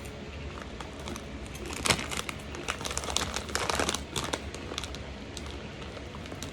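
Crisp crackling and crinkling of Wise Loose Screws nacho cheese snacks and their bag as they are handled and eaten, densest from about two to four and a half seconds in.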